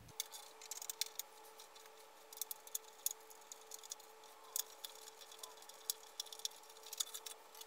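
Faint, scattered light clicks and taps of hard plastic as a detached G.I. Joe Defiant door section is handled and turned over. A faint steady hum runs underneath.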